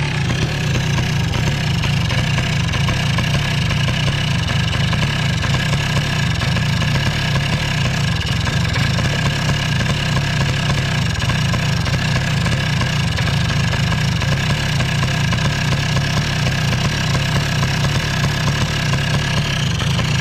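Polaris Sportsman 90's 90cc two-stroke engine idling steadily, running on its cleaned and re-installed original Mikuni carburetor.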